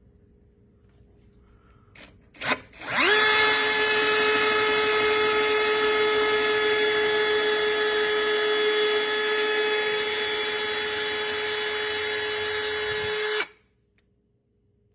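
Power drill boring the handle-screw holes through a cabinet door. Two quick trigger blips, then the motor spins up and runs at a steady whine for about ten seconds before stopping abruptly.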